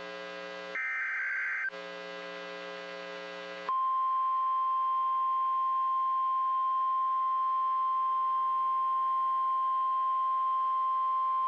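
NOAA Weather Radio Emergency Alert System signal: the last of the screeching SAME data bursts about a second in, then, about four seconds in, the steady 1050 Hz warning alarm tone starts and holds one unbroken pitch, signalling a warning alert (here a tornado warning).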